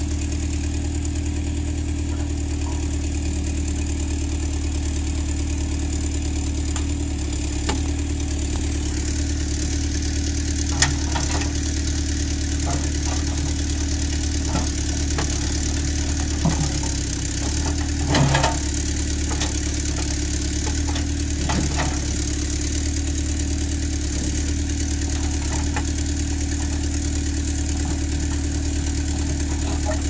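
Massey Ferguson backhoe loader's diesel engine running steadily while the backhoe bucket works a pile of rocks. Scattered sharp knocks and scrapes stand out, the loudest cluster about eighteen seconds in.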